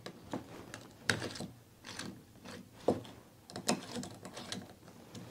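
Small Torx driver turning the screws back into a handheld edge-trimming plane. Metal parts give a scattered series of light clicks and ticks as they are fitted and screwed together.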